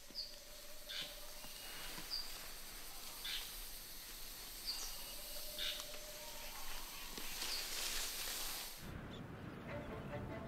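Tropical rainforest ambience: a steady high insect hiss with short, high bird chirps about once a second. About nine seconds in, the forest sound cuts off and low background music begins.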